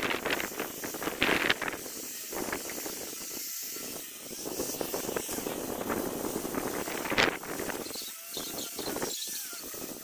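Handheld corded power tool sanding timber beams, a steady hissing rasp that swells and dips as it is worked along the wood. Wind noise on the microphone.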